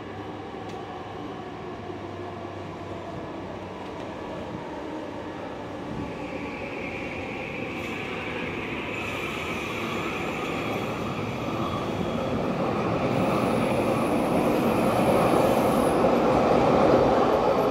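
SkyTrain linear-induction-motor metro train approaching, its running noise growing steadily louder. A high whine joins in about six seconds in.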